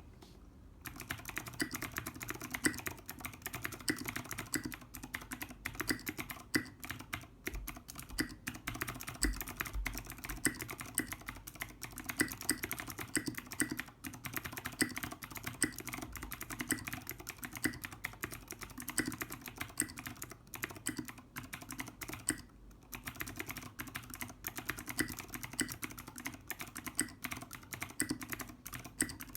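Fast typing on a Kmac mini mechanical keyboard with clicky Cherry MX Green switches and SA-profile keycaps: a dense, uneven clatter of keystrokes. It starts about a second in, with a brief pause about three-quarters of the way through.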